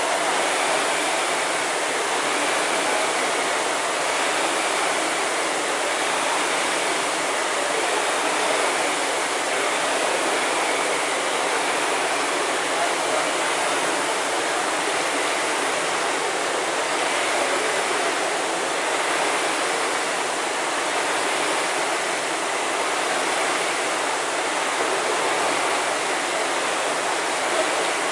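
Many Concept2 rowing machines' air-resistance flywheels spinning together in a continuous, even rush of air as the rowers pull steady strokes.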